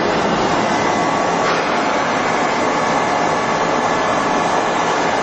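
Heckert CW 1000 horizontal machining centre running: a steady, loud mechanical noise with faint high steady whining tones over it.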